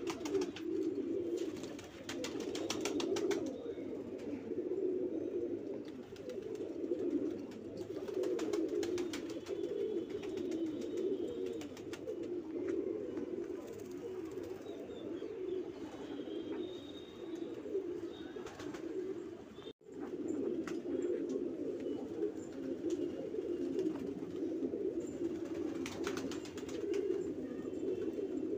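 Banarasi domestic pigeons cooing continuously, several birds' low coos overlapping. The sound breaks off for an instant about two-thirds of the way through, then the cooing resumes.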